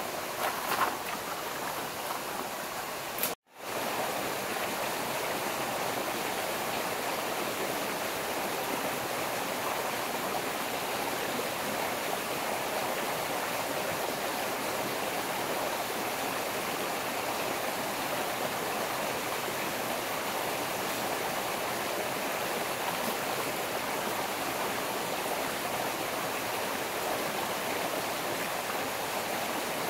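Steady rush of water flowing in a forest stream, breaking off for a moment about three seconds in.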